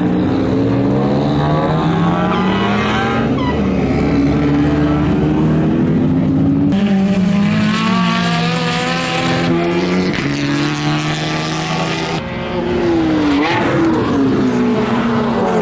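Drift cars on track, their engines revving up and down repeatedly with tyre squeal. The sound changes abruptly twice, as if jumping from one car to another.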